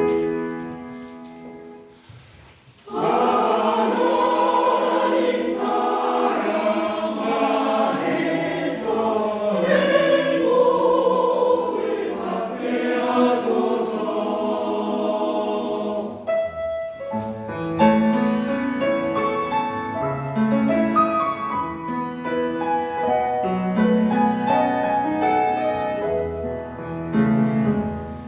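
Choir singing with instrumental accompaniment. An opening chord rings and fades for about three seconds before the voices come in.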